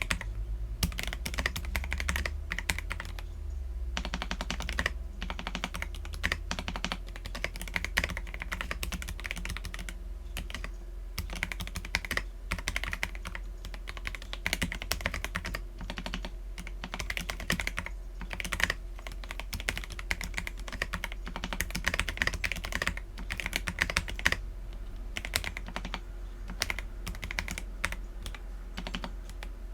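Continuous typing on an Akko PC75B mechanical keyboard with lubed Akko Jelly Black linear switches and PBT Cherry-profile keycaps: a dense, uneven stream of key presses with a few short pauses, over a faint steady low hum.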